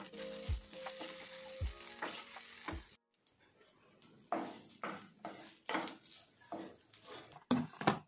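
Prawn fried rice sizzling in a nonstick pan as a wooden spatula stirs it, under background music for about the first three seconds. Then the music drops out and the spatula is heard alone in a series of separate scraping strokes against the pan.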